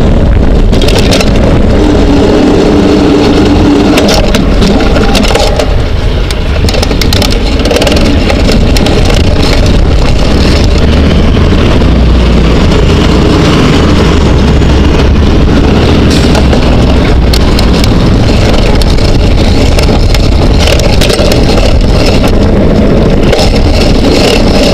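A bicycle rolling over pavement, heard through a camera mounted on its front suspension fork: a loud, steady rumble of wind and road vibration, with frequent clicks and knocks as the wheel goes over bumps and cracks.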